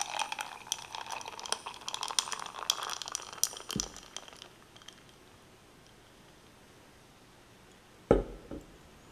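Beer being poured from a bottle into a glass, with the rising foam fizzing and crackling. It stops about four and a half seconds in. A single thump comes about eight seconds in.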